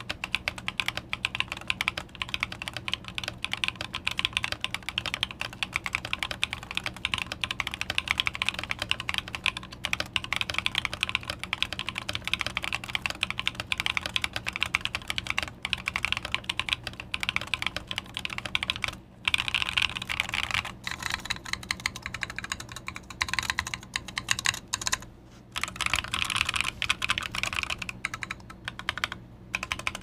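Mechanical keyboard with Emogogo linear switches and KAT Space Cadet keycaps in a one-piece bent steel case, being typed on continuously. The keystrokes have a fairly metallic sound. The typing stops for a moment a few times in the second half.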